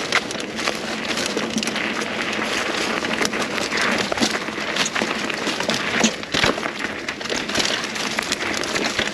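Mountain bike rolling along a dry dirt trail, heard from a handlebar-mounted camera: a steady rush of tyre noise over dirt, dry leaves and sticks, with scattered sharp clicks and knocks as the bike rattles over bumps, a few of them close together past the middle.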